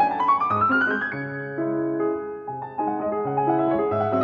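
Background piano music: a quick rising run of notes in the first second, then slower held chords.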